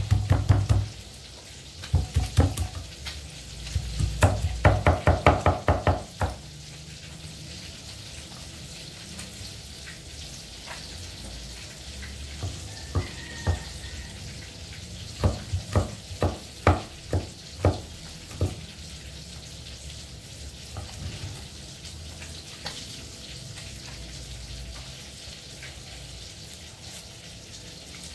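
Broad-bladed kitchen knife chopping garlic on a wooden board in quick runs of rapid knocks during the first six seconds, then scattered single knocks, over a steady sizzle of oil heating in a wok.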